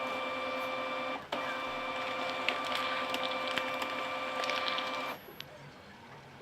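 Printer running as it prints a document: a steady whirring machine hum with fine even ticking that breaks off briefly a little over a second in, resumes, and stops about five seconds in.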